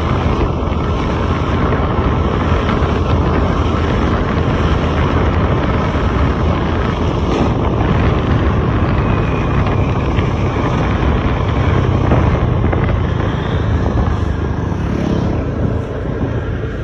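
Truck engine running with steady road and wind noise, a continuous low rumble under a dense hiss.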